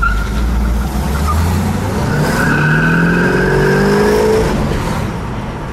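1973 Pontiac Trans Am's SD-455 V8 heard from inside the cabin, running low and then accelerating: the engine note rises steadily for about two and a half seconds, then drops and eases off near the end.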